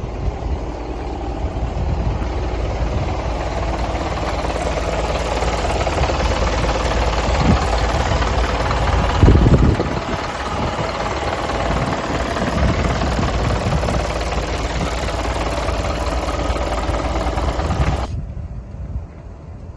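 A 4-tonne truck's diesel engine running steadily, with one loud thump about nine seconds in. The sound drops off abruptly near the end.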